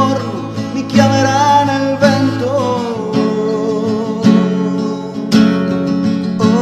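Acoustic guitar strummed with sharp chord strikes about once a second, under a man singing long, held notes that bend in pitch.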